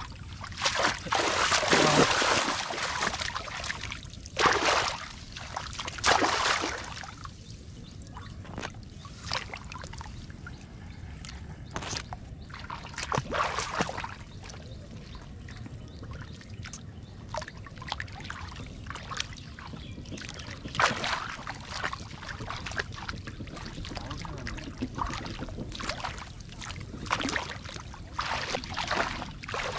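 Hands splashing and sloshing in shallow muddy water in irregular bursts, the loudest in the first few seconds, with splashing from wading feet near the end. A low, steady rumble runs underneath.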